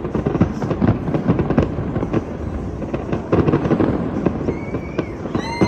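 Fireworks going off: a dense, irregular run of bangs and crackles from aerial shells, with a brief high wavering tone near the end.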